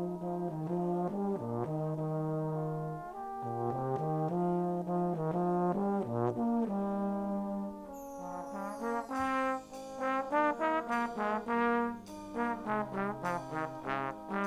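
Brass band of cornets, tenor horns, trombones, euphonium and basses playing held chords. About halfway through it moves into short, repeated detached chords with a high percussion shimmer above.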